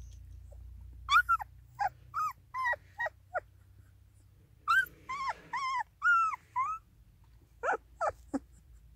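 Young puppies whimpering: short, high cries that rise and fall in pitch, coming in three bunches.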